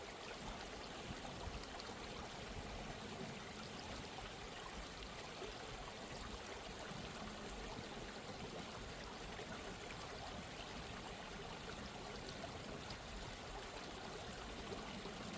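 Soft, steady sound of running water, like a flowing stream.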